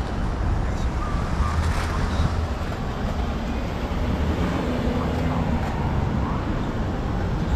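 Steady wind rumble on the microphone while riding a bike through city streets, with traffic noise behind it.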